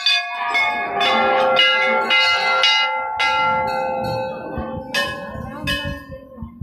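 Temple bells struck again and again, the strikes coming about twice a second at first, each leaving several ringing tones that overlap with the next. After about three seconds the strikes thin out, with two more around five and six seconds, and the ringing fades near the end.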